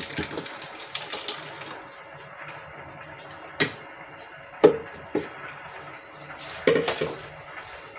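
Thick blended tomato purée pours from a blender jar into a mesh strainer for the first couple of seconds. Then come a few sharp knocks as the jar is tapped against the strainer to empty it.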